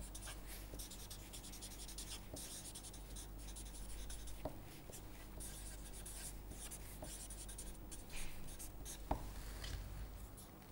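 Felt-tip marker writing on paper: a run of short, scratchy strokes, with a couple of sharp taps of the tip, the clearest about nine seconds in, over a low steady hum.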